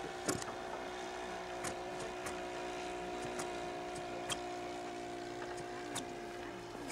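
Radio-controlled model biplane's engine running steadily in flight overhead, a held drone that dips slightly in pitch near the end. A few sharp clicks sound at intervals.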